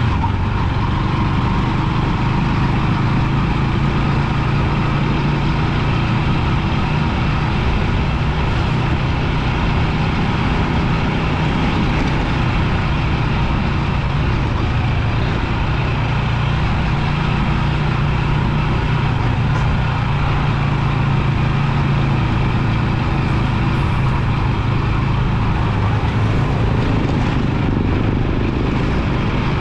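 Rusi 250 motorbike engine running at a steady pace while riding, under a steady rush of road noise.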